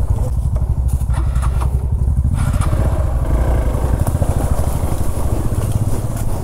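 Motorcycle engine running steadily at low speed over rough ground, its exhaust pulsing evenly.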